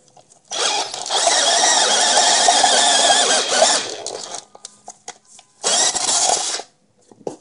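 Electric drill running, its bit boring through a metal O2 sensor spacer held in locking pliers. One long run of about four seconds, then a shorter burst of about a second near the end.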